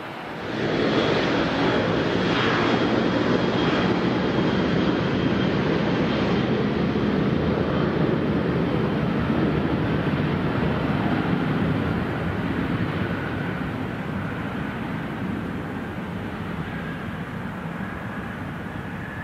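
Airliner's jet engines running loud: a roar with a thin high whine over it. It comes up sharply about half a second in, holds, then slowly fades through the second half.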